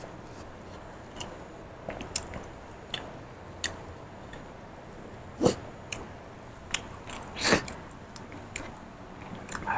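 Close-miked eating sounds of a man eating with his hands: chewing with scattered wet smacks and clicks, two louder ones about five and a half and seven and a half seconds in.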